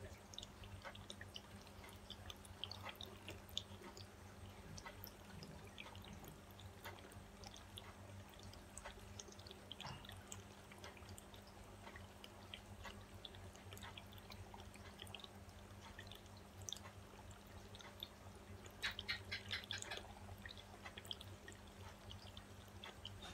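Faint wet squelches and small ticks of acrylic pouring paint being squeezed from a small plastic squeeze bottle onto canvas, with a quick run of clicks about three-quarters of the way through. A steady low electrical hum runs underneath.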